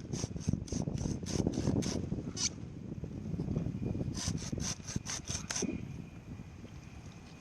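Hand saw cutting through palm fronds with quick strokes, about four a second, in two runs with a pause between them.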